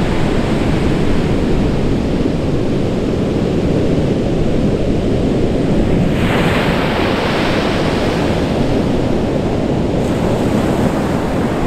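Pacific Ocean surf breaking on a sandy beach: a steady rush of waves, with a louder hiss of breaking water from about six seconds in that lasts some four seconds.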